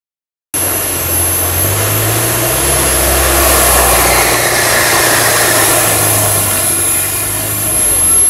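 Modified off-road 4x4's engine running hard under load, a loud steady noise that cuts in suddenly about half a second in and carries on, with a thin high whine over it.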